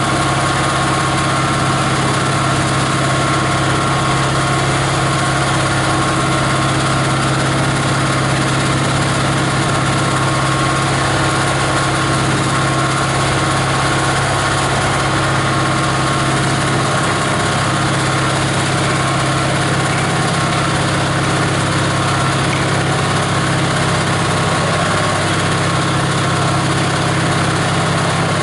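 18 HP diesel engine of a plastic-grinding machine running steadily at an even speed, with a constant low drone and a few steady higher tones over it.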